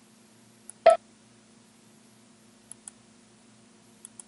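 Computer mouse buttons clicking, in faint pairs of quick clicks twice, with one much louder short knock about a second in, over a steady low electrical hum.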